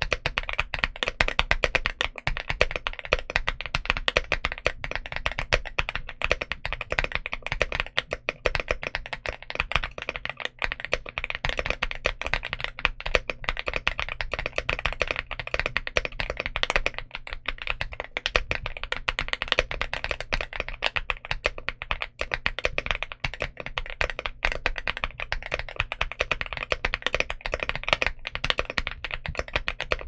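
Fast, continuous typing on a Leobog Hi98 mechanical keyboard fitted with Leobog Barbie linear switches and PBT Cherry-profile keycaps: a dense, steady clatter of keystrokes.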